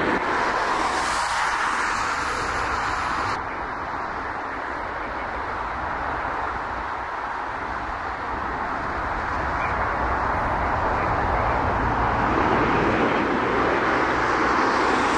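Jet engines of a Boeing 777 and then an Airbus A330-343 airliner passing low on final approach: a steady broad roar. It drops and changes abruptly about three seconds in, where one aircraft gives way to the next, and swells again toward the end.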